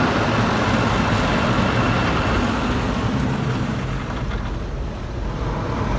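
Fusion X rollover car wash machine working over the car, heard from inside the cabin: water spraying on the body over the steady running of its motors. Very loud, easing a little after about four seconds.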